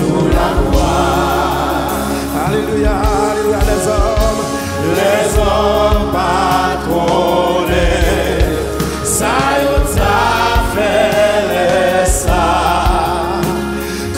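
A church worship team singing a gospel song in Haitian Creole: a lead voice with backing singers, over a steady, sustained low instrumental accompaniment.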